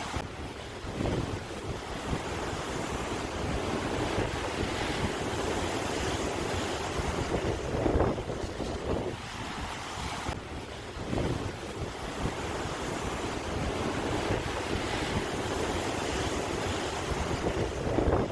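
Sea waves surging and washing in continuously, with wind buffeting the microphone; louder surges come about eight seconds in and near the end.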